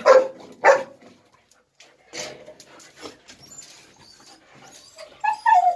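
A dog making short, loud pitched calls twice right at the start and a whine near the end, with light clicks and scrapes in between as it moves about.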